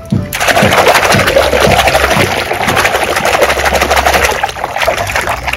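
Soapy water splashing and sloshing in a basin as a hand scrubs a plastic toy figure hard under the water. It starts suddenly a moment in and goes on as a loud, continuous churning.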